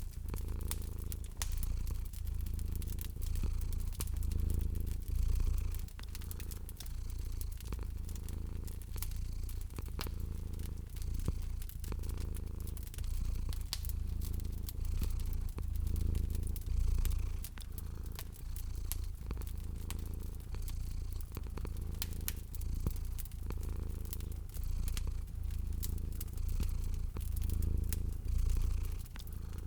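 Domestic cat purring steadily, its low rumble swelling and fading about once a second with each breath, over the small pops and crackles of a wood fire.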